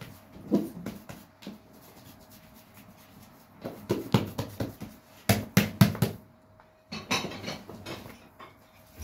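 Kitchen knife slicing through a log of çiğ köfte and knocking on a wooden cutting board: a run of irregular knocks, loudest and closest together about four to six seconds in.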